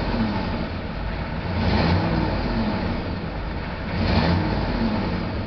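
GM 6.5-litre turbo-diesel V8 at full operating temperature, revved up and let fall back toward idle about every two seconds, three swells in all.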